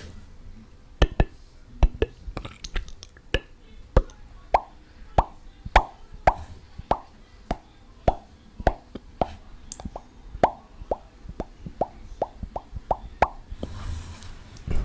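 Mouth sounds made with the tongue: a few scattered sharp clicks, then a steady run of hollow tongue pops, about two a second, which stops shortly before the end.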